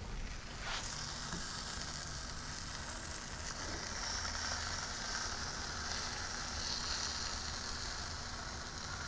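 Oiled sweet potatoes sizzling on the hot grate of a Big Green Egg as they are set down, a steady high hiss that sets in about a second in.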